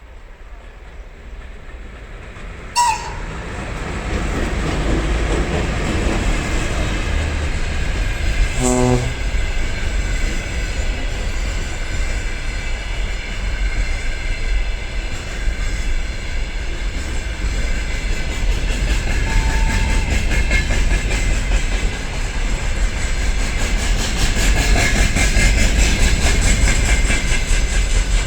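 Freight train hauled by a VL10 electric locomotive passing: a steady rumble with the clatter of wheels over rail joints. It starts about three seconds in after a short sharp sound, and grows louder and more rhythmic near the end.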